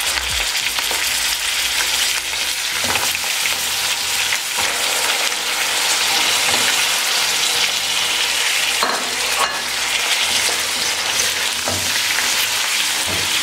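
Raw chicken pieces sizzling in hot oil with fried onions in a wok, being stirred and turned with a silicone spatula. A few brief knocks and scrapes of the spatula sound against the pan.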